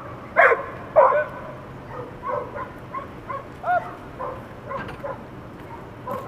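A dog barking sharply twice, about half a second and a second in, then a string of fainter short high-pitched calls.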